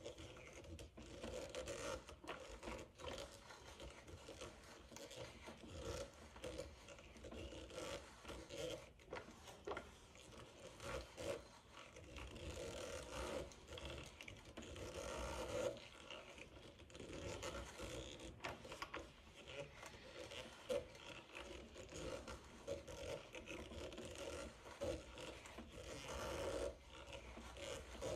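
Hand brace turning an auger bit into a wooden board: the bit scraping and shaving through the wood, swelling and fading over and over as the crank goes round.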